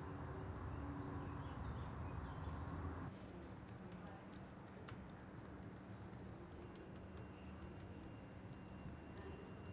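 Outdoor background noise with a low rumble, then, about three seconds in, typing on a laptop keyboard: irregular light key clicks over a quiet room with a faint steady hum.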